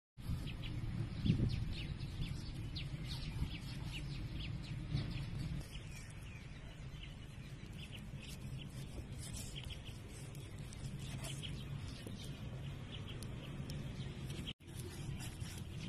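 Birds chirping in many short, quick, high calls over a steady low hum, cut off briefly near the end.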